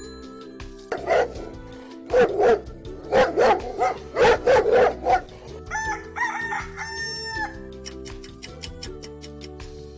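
A run of short animal calls, then a rooster crowing twice in long pitched calls, played as sound effects over light background music, with quick ticking near the end.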